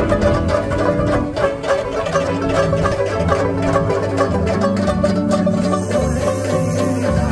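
A group of banjo-ukuleles (banjoleles) strummed together in a fast, even rhythm, playing a lively tune over a changing bass line.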